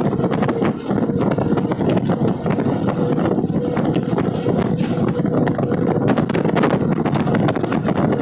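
Loud, steady rumble of wind buffeting the phone microphone, mixed with highway traffic noise.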